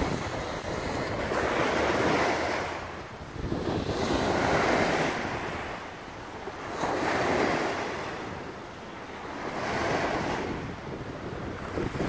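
Small river waves breaking and washing up a sandy beach, the hiss of each wash swelling and fading about every two and a half seconds. Wind rumbles on the microphone underneath.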